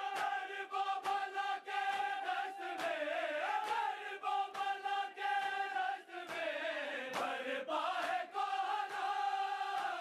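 Male voices chanting a noha, a Shia mourning lament, on long held notes, with sharp beats keeping time about twice a second.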